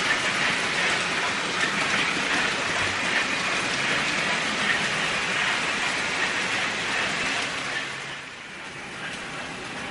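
Märklin HO model freight train's metal wheels rolling over the track, a steady hissing rattle that drops off about eight seconds in as the wagons pass.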